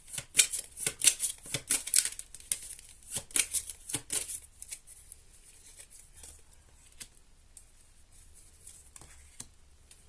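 Tarot cards being shuffled: a quick run of crisp card flicks and riffles for about four seconds, thinning out to a few soft taps and card slides.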